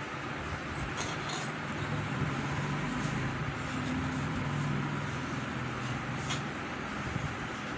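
Steady background hiss with a low, engine-like hum that swells for a few seconds in the middle and then fades, with a few faint ticks.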